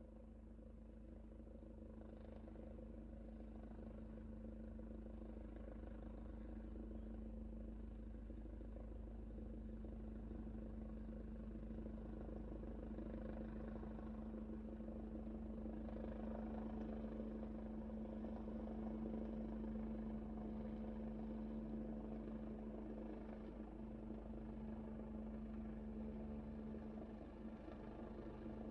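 Helicopter coming in to land, a steady engine drone with a rapid rotor beat under it. It grows louder through the first twenty seconds or so, then eases a little.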